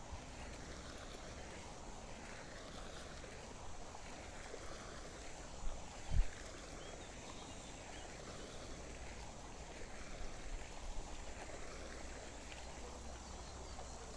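Faint steady outdoor ambience with a low rumble, while a magnet-fishing rope is hauled in by hand. Two short dull knocks about six seconds in.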